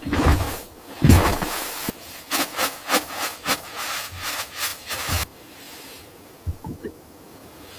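Rhythmic scraping strokes, about three a second, that stop about five seconds in, followed by a few faint knocks.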